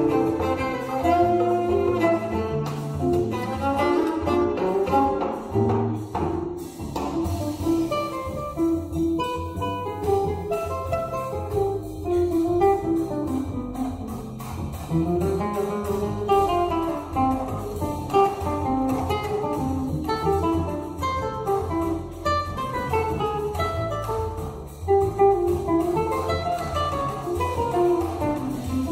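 Cello, nylon-string acoustic guitar and drum kit playing a choro together, a form of old-style samba.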